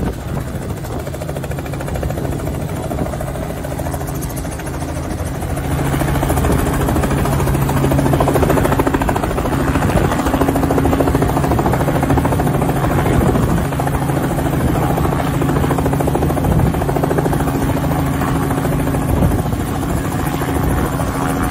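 Small two-blade Robinson helicopter coming in to land, rotor and engine running with a steady low hum. It gets louder about six seconds in as it nears the pad, then keeps running after touching down.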